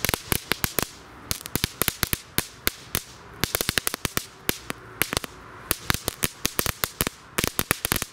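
A Knatterpeitsche (crackling whip), a Röder Kids Edition children's firework, going off on asphalt. It gives a fast, irregular string of sharp cracks, several a second in uneven clusters, very loud.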